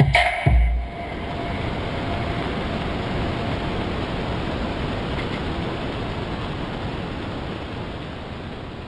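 The beat ends with a last deep hit about half a second in, then a steady hiss like static carries on and slowly fades out near the end.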